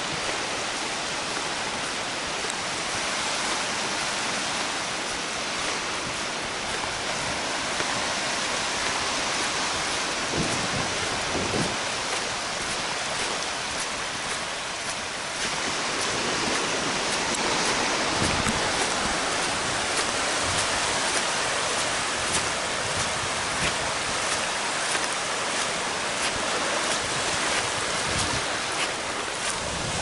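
Small waves washing up on a flat sandy beach: a steady rush of surf, a little louder from about halfway in.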